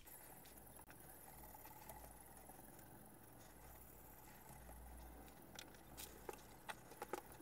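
Near silence with faint scraping of a 400-grit stone drawn along a knife edge on a fixed-angle sharpener, and a few light clicks near the end.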